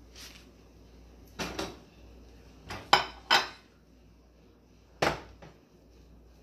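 Kitchenware being handled: several short, sharp clinks and knocks of bowls and utensils set down and moved.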